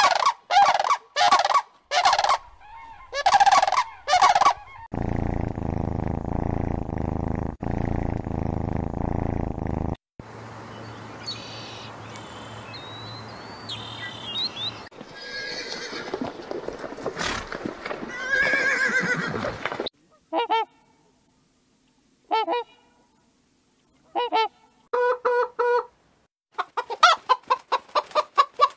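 Farm birds calling, goose-like honks among them: a quick run of about five calls at the start, and separate calls later, ending in a fast series of short calls. For about five seconds in the middle there is a steady low hum.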